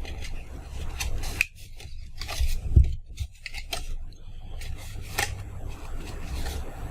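Scored paper being folded and creased by hand: irregular rustling and rubbing with a few sharper crackles.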